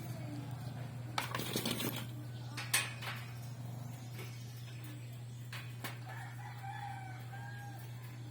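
Clattering knocks in the first few seconds, the sharpest about three seconds in, then a rooster crowing once near the end, over a steady low hum.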